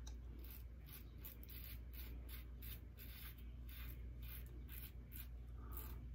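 Double-edge safety razor scraping through lathered stubble in short strokes, about three a second, faint.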